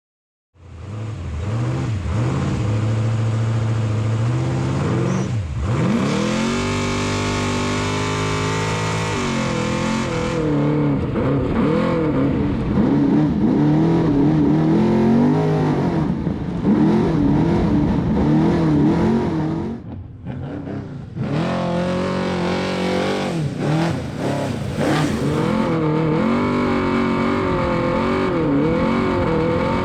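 Off-road race vehicle's engine running hard: a long rising rev a few seconds in, then the pitch rises and falls as the throttle works over rough ground, with a brief drop about two-thirds through.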